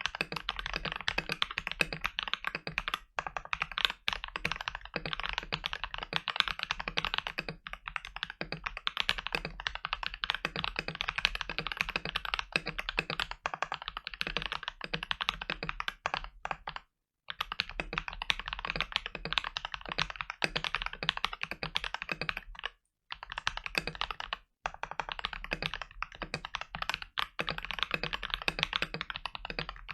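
Fast, continuous typing on a Gamakay LK67 mechanical keyboard with lubed Akko CS Lavender Purple tactile switches, keystrokes clicking in quick succession, broken by a few brief pauses around the middle and later on.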